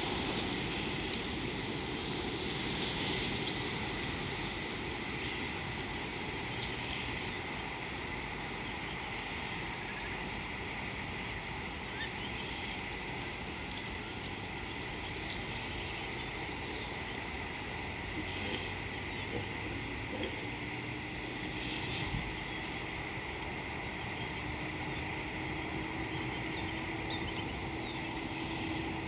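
Bush ambience with a short, high chirp repeating about once or twice a second, like an insect calling, over a steady background hiss.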